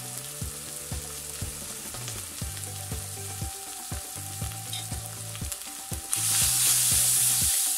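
Onions and green chillies frying in oil in an aluminium karahi, giving a soft steady sizzle. A little after six seconds the sizzle grows much louder as a wooden spatula stirs the freshly added ground spices into the pan.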